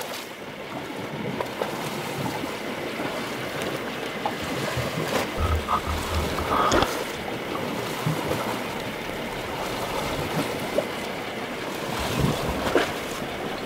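Wind and sea noise around a boat on open water, with gusts buffeting the microphone a few times and a couple of short knocks.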